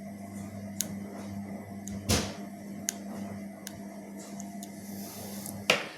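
A small electric machine hums steadily, with sharp clicks and taps of small tools on the watch. The hum cuts off with a knock near the end.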